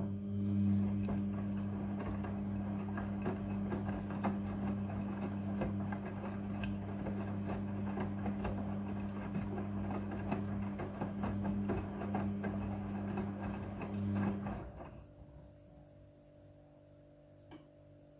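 Front-loading washing machine in its wash tumble: the motor hums steadily as the drum turns the clothes over, with a rough swishing rattle of the load, for about fourteen seconds before winding down and stopping. A small click follows near the end.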